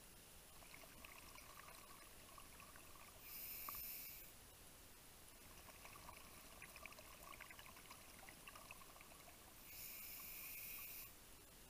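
Faint underwater breathing through a scuba regulator: two bursts of exhaled bubbles, about three seconds in and near the end, with faint crackling between them.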